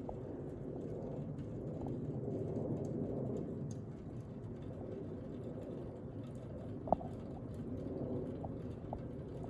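Steady low background rumble of outdoor ambience, with a single sharp click about seven seconds in.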